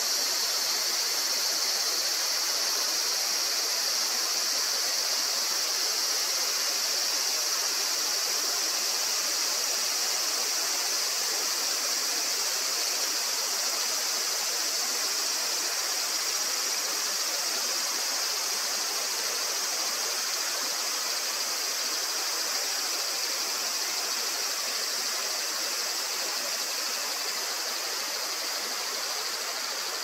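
Steady hiss of rain from a summer evening downpour, with a steady high-pitched insect chorus over it.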